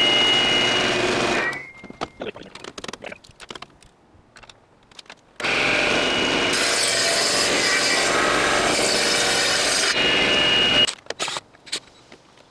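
Rockwell 9-inch table saw cutting through a log, with a high blade whine. About a second and a half in the noise stops and the whine drops in pitch, followed by a few knocks as the log is handled. Then the saw cuts again for about five seconds and stops abruptly.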